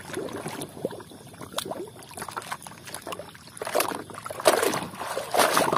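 Water sloshing and splashing as a plastic toy dump truck is swished back and forth by hand through shallow water to rinse off mud, in irregular strokes that grow louder in the second half.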